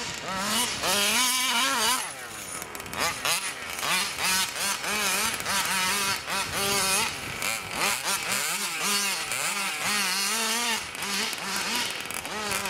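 Big-bore two-stroke petrol engine of a 1/5-scale RC truck being driven hard. Its pitch rises and falls again and again as the throttle is opened and backed off.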